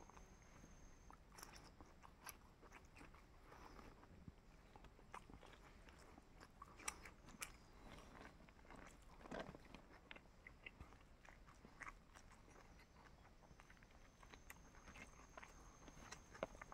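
Faint chewing: a person eating, with scattered small mouth clicks.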